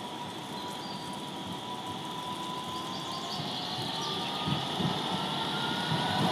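Dortmund Stadtbahn tram approaching on wet street track, its running noise slowly growing louder, with a thin steady whine.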